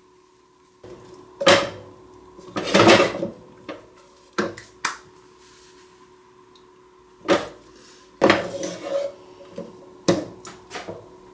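Kitchen clatter: a utensil knocking and scraping against a pan and dishes, in a string of separate clanks, some with a short ring.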